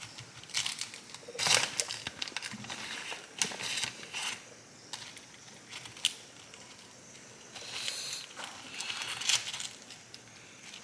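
Irregular crinkling and rustling with scattered light clicks and clatter: kitchen handling while cheese is put on freshly fried tacos.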